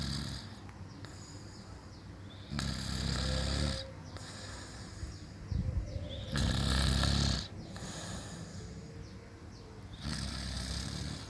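A sleeping person snoring: four loud snores, each about a second long, coming every three and a half to four seconds.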